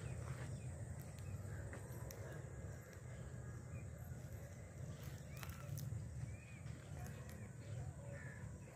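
Birds calling in the trees: several short calls, mostly from about five seconds in, over a steady low rumble of wind and handling noise on the moving camera's microphone.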